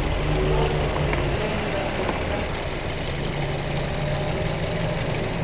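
A Toyota four-cylinder petrol engine idling unevenly with a misfire, which the mechanic traces to a shorted number-one ignition coil. A brief hiss sounds about a second and a half in, lasting about a second.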